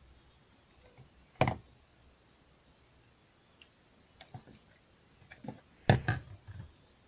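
Slime being pressed and squished by hand, giving scattered sticky clicks and small air-bubble pops. One sharp pop comes about a second and a half in, a few soft clicks follow, and a denser cluster of pops comes near the end.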